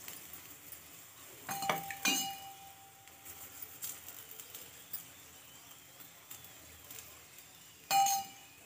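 Steel spoon clinking against metal while oiling a paratha on the tawa. There are two strikes about two seconds in, one ringing on for a couple of seconds, and another ringing clink near the end.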